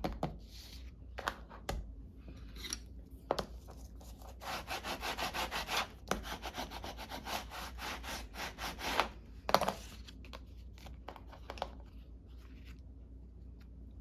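Paper being rubbed down by hand to press a freshly glued piece flat: quick, even rubbing strokes about six a second for several seconds in the middle, among scattered paper-handling rustles, with a sharp click near the end of the strokes.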